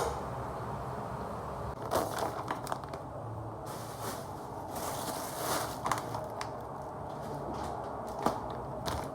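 Steady low room hum with scattered light clicks, taps and rustles, as of small objects being handled.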